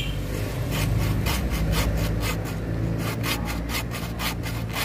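Small hand saw cutting through a bougainvillea rootstock stem: back-and-forth strokes rasping through the wood, quickening about three seconds in.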